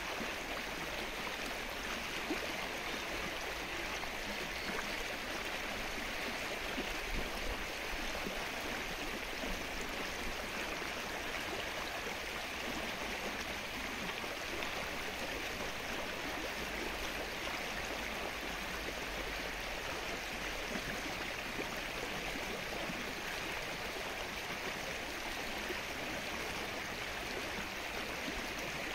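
Steady rain falling on the open water of a lake, an even patter of drops on the surface that does not change.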